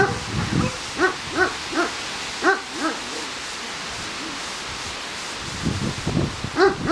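Akbash puppies yipping in play: a series of short, high yips through the first three seconds, a pause, lower and rougher sounds about six seconds in, then another loud yip near the end.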